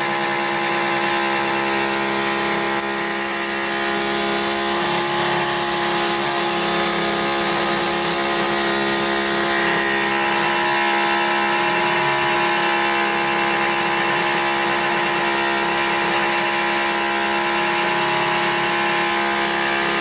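Steady, loud electrical hum-buzz with several fixed pitches from an energized home-built rig of a microwave oven transformer, which steps the voltage up, and a small electric pump.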